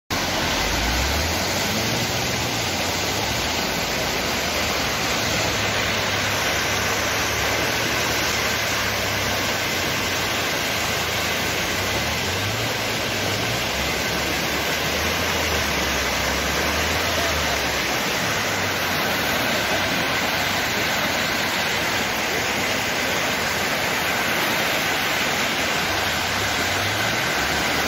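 Muddy floodwater of a mudflow rushing across a road, a steady loud wash of water noise, with a low rumble coming and going during the first half.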